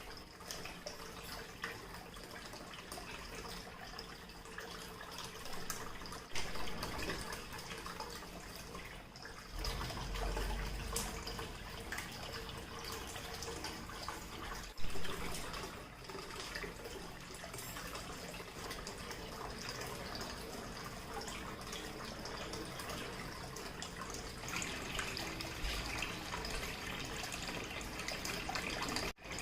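Water from a small homemade waterfall fountain falling and splashing steadily, with a couple of brief knocks about six and fifteen seconds in.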